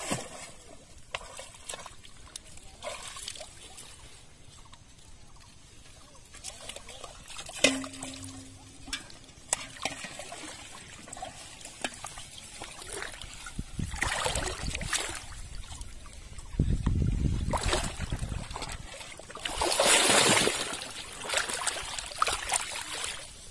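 Water splashing and trickling around a person wading chest-deep and lifting lines out of a pond, with scattered small knocks. In the second half come three bursts of louder splashing.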